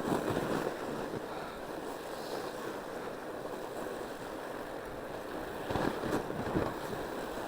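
Fat bike tyres rolling over crusted snow, making a steady rushing noise, with a few thumps about six seconds in.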